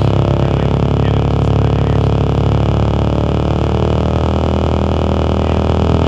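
Live noise music: a loud, steady drone of dense low hum under a wash of hiss, with no beat or breaks.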